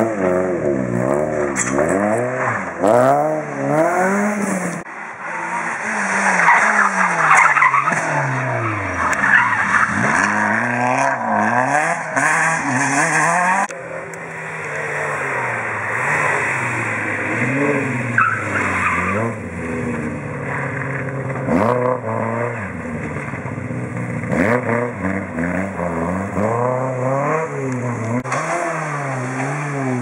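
Rally cars taken hard through a tight bend one after another, engines revving up and falling back again and again through the gear changes, with tyre squeal and skidding. The sound changes abruptly from one car to the next about halfway through.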